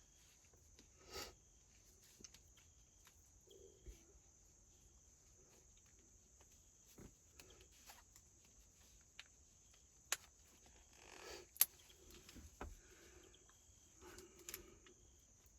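Near silence broken by faint rustling and scattered small clicks and taps of wires being handled and pushed down through a steering column, with two sharper clicks about two-thirds of the way through.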